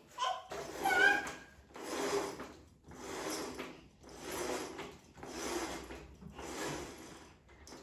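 Rhythmic rubbing strokes on a hard surface, about one a second, like hand scrubbing during cleaning, with a brief squeak about a second in.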